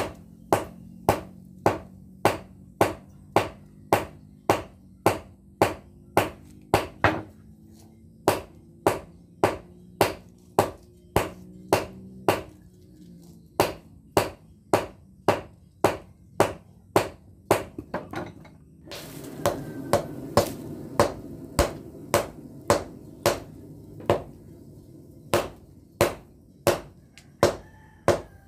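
Hand hammer striking a glowing pattern-welded (pamor) steel billet on an anvil, sharp ringing blows about twice a second with two brief pauses. A steady rushing noise comes in about two-thirds of the way through under the strikes.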